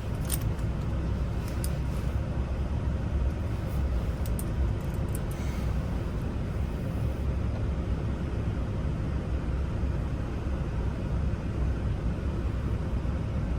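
Steady low background rumble, with a few faint, light clicks in the first half.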